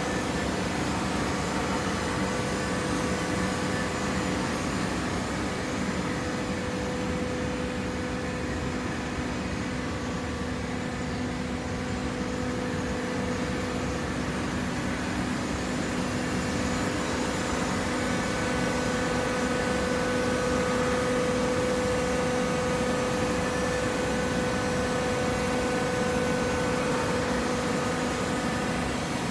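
Horizontal hydraulic baler's power unit running with a steady mechanical hum and a constant tone. The hum grows a little stronger about two-thirds of the way through.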